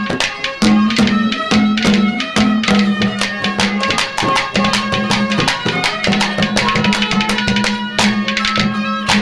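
Instrumental music of a Haryanvi ragni before the singing comes in. A hand drum beats a quick, steady rhythm over a held melodic note.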